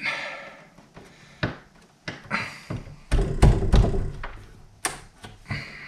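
Steel wood chisel worked into a door edge to cut a latch mortise, giving separate sharp taps and clicks as chips pop out. A louder run of dull knocks and thuds comes about three seconds in.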